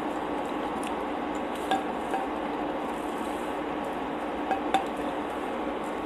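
A few small clicks and clinks from a slice of pizza being handled over a dinner plate: two a little under two seconds in and two more near the end, the last the loudest. Under them runs a steady hiss with a faint hum.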